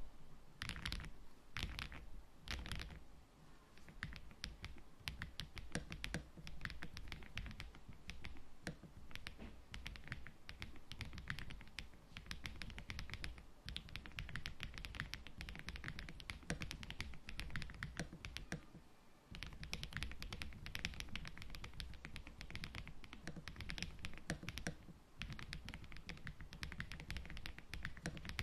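Mechanical keyboard fitted with a full keycap set being typed on fast and continuously: a dense run of key clacks, with brief pauses about 19 and 25 seconds in.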